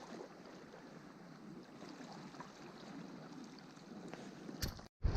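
Faint, steady wash of shoreline water with a few small ticks, then a sudden cut near the end into loud wind buffeting the microphone.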